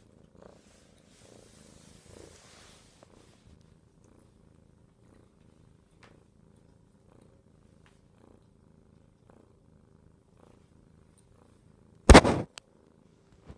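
Domestic cat purring softly and steadily. Near the end comes a sudden loud rustling knock, about a third of a second long, followed by a faint click.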